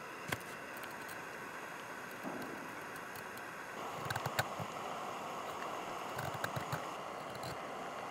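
Knife carving a feather stick: a run of short scraping strokes that shave curls off a split piece of wood, each with a light click and a low knock against the wood beneath, coming thickest from about four seconds in. A steady background hiss runs underneath.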